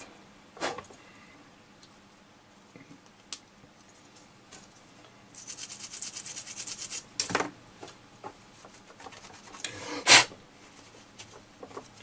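A cloth rubbing a freshly cleaned circuit board dry. About halfway through comes a quick run of rapid rubbing strokes lasting about a second and a half, with scattered short rustles and knocks around it.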